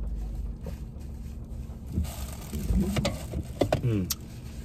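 A man drinking from a soda can: small clicks and swallowing sounds in the second half, with a brief voice-like sound falling in pitch near the end.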